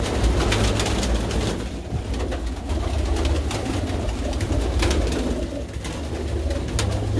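A flock of domestic pigeons cooing together, with repeated sharp wing flaps and clatter as birds flutter up and fly about.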